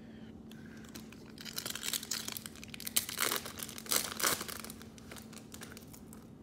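Foil trading-card pack being torn open and its wrapper crinkled, in several rustling bursts over a few seconds.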